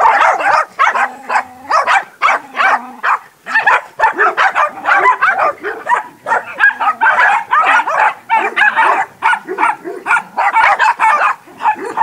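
Dog barking rapidly and without letup, several sharp barks a second.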